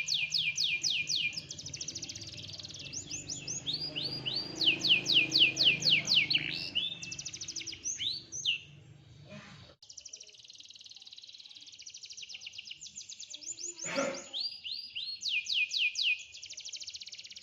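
Domestic canary singing: phrases of one high, downward-sweeping whistled note repeated several times a second, alternating with buzzy rolled trills.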